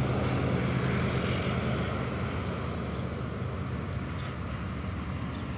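Steady low drone of an engine running at a distance, easing slightly quieter over the first few seconds.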